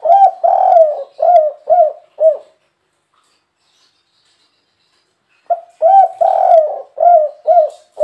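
Spotted dove (derkuku) cooing, twice, about five and a half seconds apart. Each phrase is a short note, a long drawn coo and three short closing notes: the three-note 'kuk 3' song.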